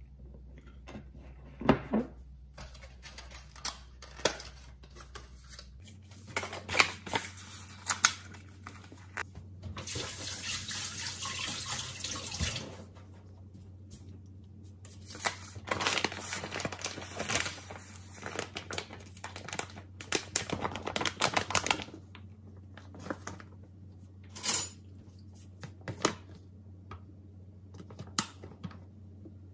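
Kitchen counter handling sounds: scattered clicks and knocks of plastic berry clamshells, a spoon and a glass mug as fruit and oats go into a yogurt bowl. About a third of the way in comes roughly three seconds of steady rushing noise.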